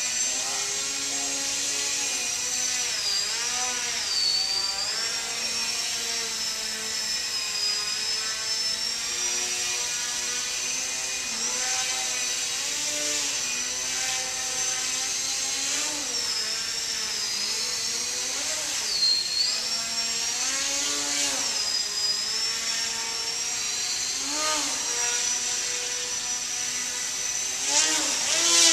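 Small RC foam airplane's electric motor and propeller running, its whine rising and falling in pitch again and again with the throttle as it hovers nose-up and climbs, with a louder surge near the end.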